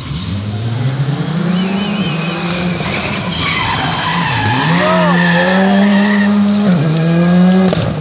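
A rally car's engine revving hard as the car approaches. The pitch climbs, drops sharply and climbs again about halfway through, then holds high, while the tyres squeal in the middle.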